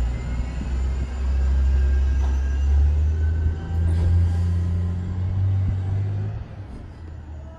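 A loud, deep rumble with a low engine-like hum that steps up in pitch twice, then dies away about six seconds in.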